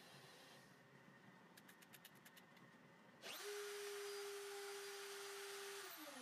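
CNC spindle motor switched on: it spins up in a fraction of a second to a steady whine, runs for about two and a half seconds, then is switched off and winds down with falling pitch. This is a test of starting and stopping the spindle through the newly installed solid-state relay. A quick run of faint ticks comes a second or so before it starts.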